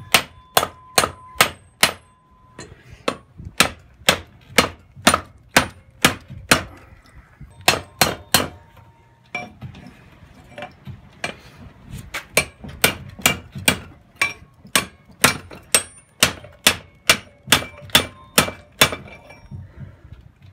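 Hand hammer striking hot steel on a small $15 anvil, forging a bend into a hatchet's handle bar: sharp metal blows about three a second in runs with short pauses, some blows leaving a brief ringing tone.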